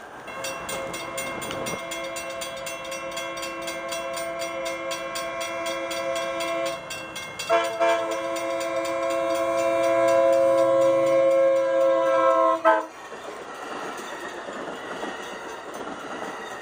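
Passenger train horn sounding one long chord, with a brief break about seven and a half seconds in and cutting off sharply about thirteen seconds in. After it, the steady rumble and clatter of the train passing.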